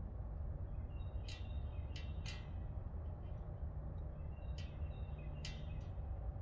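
Small birds chirping in short calls, about five times, over a steady low rumble.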